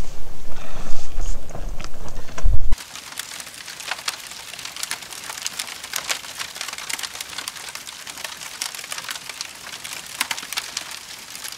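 Wind buffeting the microphone with a loud low rumble, which cuts off suddenly about three seconds in. A steady, dense fine crackling follows.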